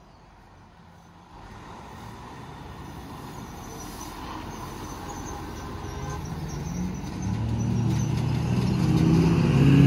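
A diesel semi-truck hauling a loaded step-deck trailer turns in and drives up close, its engine building steadily louder and strongest near the end.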